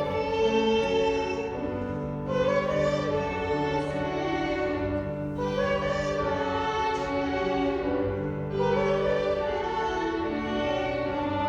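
Violin ensemble playing a slow piece in long, held notes with vibrato, the chords changing every two to three seconds.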